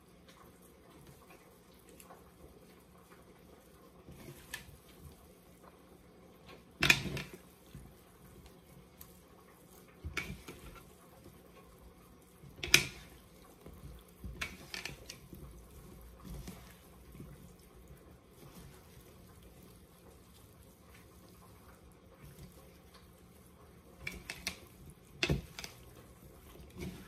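Cooked chicken breast being pulled apart by hand: scattered wet squishes and small clicks, with a few sharp knocks against the dish, the loudest about seven and thirteen seconds in, over a faint steady hum.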